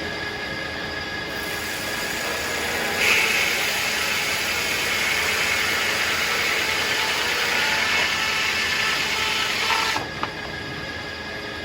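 Circular sawmill running as it saws a tulip poplar log, a steady mechanical noise with a high ring. It gets louder about three seconds in and drops back near the end.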